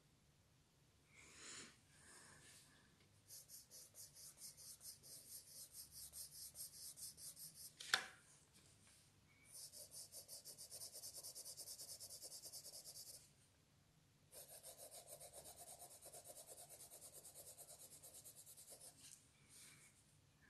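Pencil shading on paper: quick, even back-and-forth strokes in three runs of a few seconds each, with a single sharp tap about eight seconds in.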